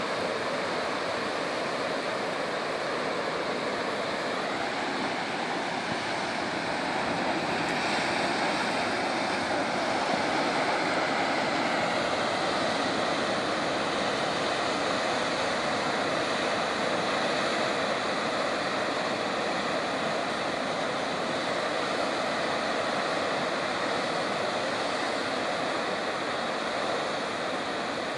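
Ocean surf washing over and around shoreline rocks: a steady rush of water noise without distinct breaks.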